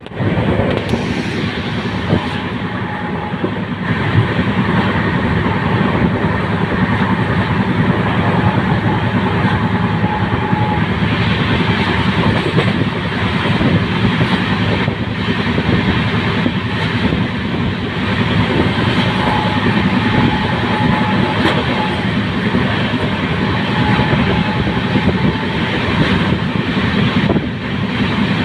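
Amritsar–Chandigarh Express passenger train running at speed, with a steady loud rumble and rattle of wheels on the track and a faint high whine that comes and goes.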